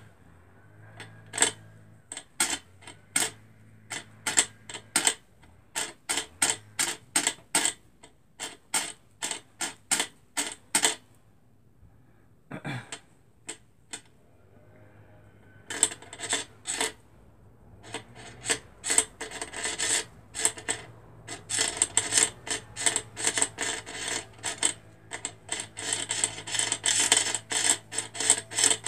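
Thread being wound by hand onto a small sewing-machine bobbin, because the machine can't wind it: a run of short, even clicks about two a second. After a brief lull partway through, it turns into faster, denser rubbing and ticking.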